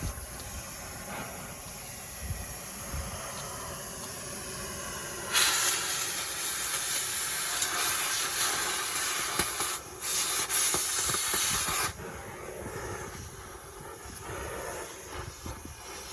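Compressed air hissing out hard for about six seconds, with a brief break partway through, starting about five seconds in; faint knocks and work noise around it.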